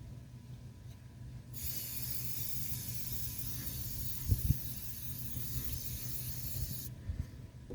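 Can of HomeBrite electronics air duster spraying a steady hiss for about five seconds, starting and stopping sharply. Two quick knocks come near the middle of the spray.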